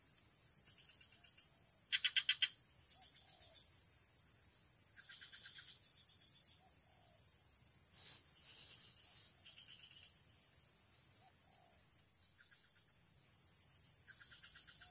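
Frogs calling in short pulsed trills every second or two, with one louder burst of about five quick pulses about two seconds in, over a steady high-pitched insect drone.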